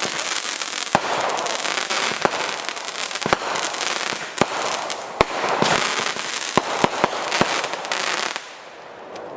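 Consumer aerial fireworks going off: a dense crackling with sharp bangs about once a second, stopping abruptly near the end.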